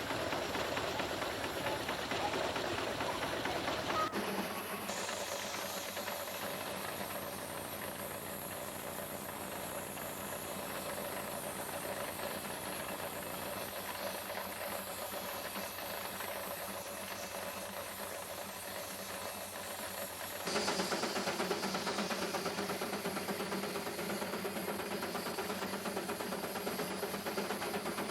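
Steam engine running a sawmill, with steady steam hissing and a rapid mechanical ticking. The sound changes abruptly about four seconds in and again near twenty seconds in.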